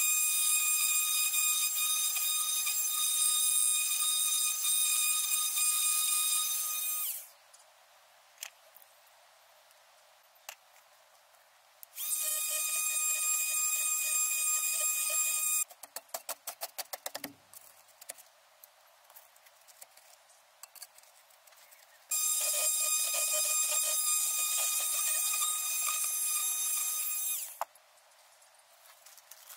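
A corded power tool cutting through an old clay drain pipe, running steadily with a high-pitched whine for about seven seconds, again for about four seconds from roughly 12 s in, and again for about five seconds from roughly 22 s in. Between the second and third runs there is a quick rattle of clicks.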